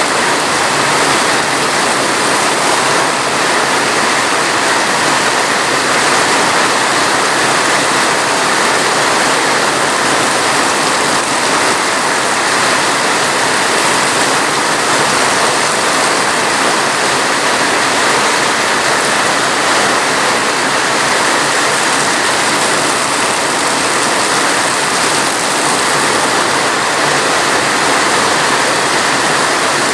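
Steady rain falling, an even, unbroken hiss with no separate drops, thunder or other events standing out.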